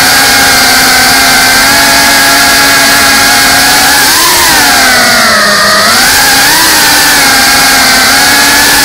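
GEPRC CineLog 35 cinewhoop's motors and ducted propellers whining, holding a steady pitch at first, then from about four seconds in swinging up, down and up again as the throttle is worked.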